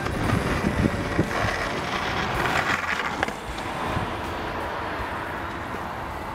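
Skateboard rolling on a concrete footpath: a steady wheel rumble with irregular knocks over the first second or so, and road traffic passing alongside.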